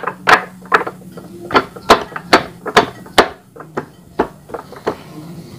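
Repeated sharp knocks, about two to three a second, as a polyurethane V-belt pulley is pushed and turned by hand onto a rice-mill machine's shaft. The knocking stops about five seconds in.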